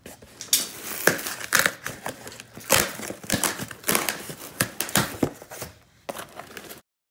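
Cardboard shipping box being torn open by hand: packing tape ripping and cardboard flaps tearing and crinkling in a quick run of sharp, irregular rips.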